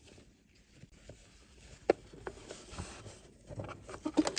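Quiet handling of sewn fabric: faint rustles and a few light ticks, one sharper tick about two seconds in and a small flurry of them near the end.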